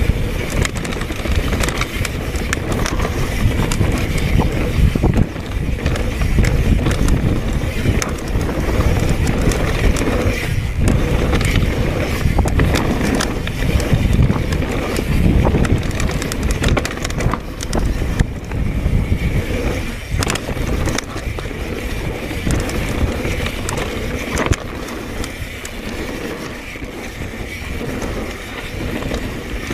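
Mountain bike rolling fast over a dirt trail: continuous tyre noise on dirt and stones with frequent rattles and knocks from the bike over the bumps, and a heavy rush of wind on the microphone. It drops a little in level about 24 seconds in.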